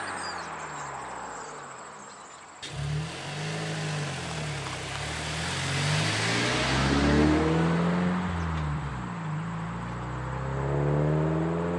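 Mazda 3's 2.5-litre four-cylinder, breathing through a K&N short ram intake and a Corksport axle-back exhaust, as a car drives by. One pass fades away with falling pitch. After a sudden cut the engine is heard again, its pitch rising and falling several times as the car accelerates.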